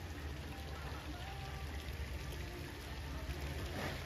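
Steady splashing and trickling of water circulating through live-seafood display tanks, with a low hum underneath.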